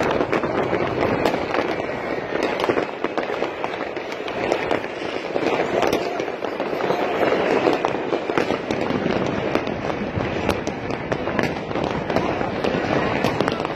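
Fireworks display: a dense, continuous crackle with many sharp bangs in quick succession.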